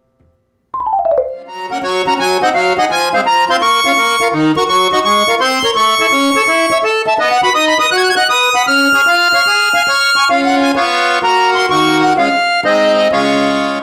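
Background music: a quick, bright instrumental melody that starts about a second in and cuts off abruptly at the end.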